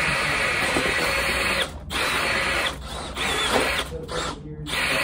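Cordless drills spinning the rollers of a floor roller intake prototype in on-off runs: a long steady run, a short pause, then shorter bursts as the rollers pull a plastic cone in.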